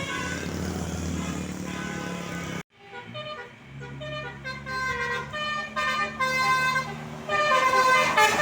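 Telolet musical bus horns playing runs of short pitched notes in a tune, over a bus engine running. The sound cuts off suddenly about two and a half seconds in, then the horn tunes start again and grow louder near the end.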